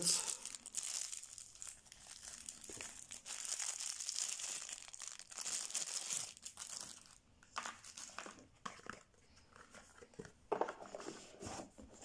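Crinkling of a clear plastic bag and rustling of a cloth pouch as a folding knife is unwrapped by hand. After about seven seconds it turns to quieter, scattered handling rustles and a few light knocks.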